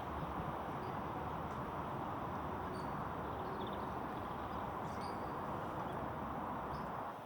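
Steady outdoor rushing noise with a few faint, short bird chirps.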